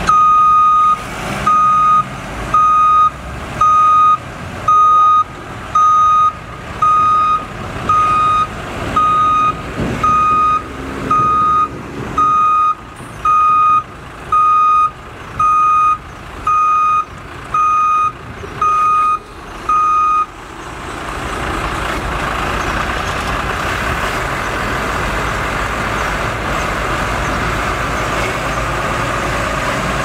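Heavy-machine reverse alarm beeping evenly about once a second over diesel engine noise. About two-thirds of the way through the beeping stops and the engine and machinery noise grows louder and steady.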